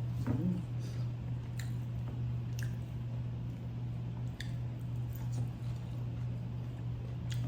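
A steady low hum with a few light, short clicks scattered through it.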